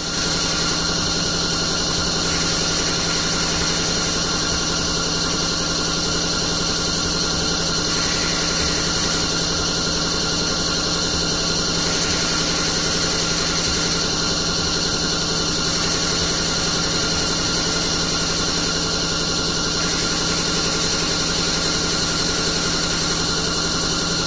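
A machine running steadily with a constant whine, its pitch and level unchanging throughout.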